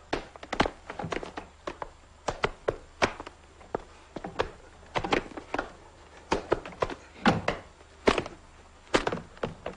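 A fistfight: irregular thuds and smacks of blows and bodies knocking against wooden furniture, about three a second.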